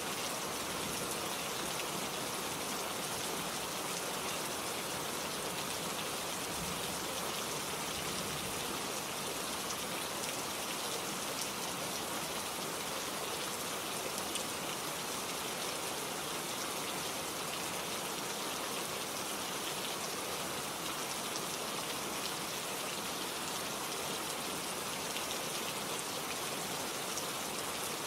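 Steady rain falling: an even hiss of many drops, with faint separate drop patters.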